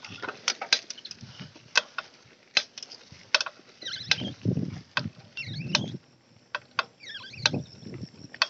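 Mountain bike ridden over a bumpy dirt singletrack: irregular sharp clicks and rattles from the bike jolting over the ground, with low rumbles from the tyres and wind. A few short, high wavering chirps come in about four, five and a half, and seven seconds in.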